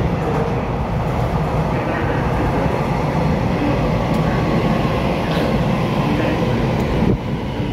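Taiwan Railway EMU3000 electric multiple unit running into the station alongside the platform: a loud, steady rumble of wheels and running gear on the rails, easing off slightly near the end.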